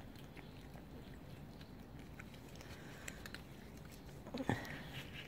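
Ginger-and-white cat licking and chewing a squeeze-tube treat held out by hand: many small, faint wet clicks. A brief louder sound with a short falling pitch cuts in about four and a half seconds in.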